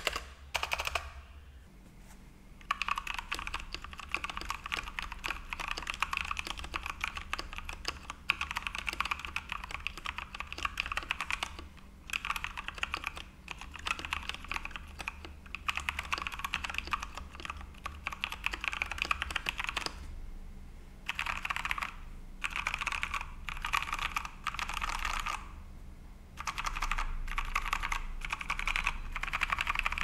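Typing on a Dareu EK807G wireless mechanical keyboard with Dareu Brown tactile switches lubed with Krytox 205g0 and modded stock stabilizers: rapid keystroke clicks in runs of a few seconds, broken by short pauses.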